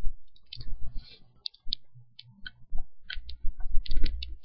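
Computer mouse and keyboard clicking: about a dozen sharp, irregular clicks, bunched together near the end, over faint low thumps.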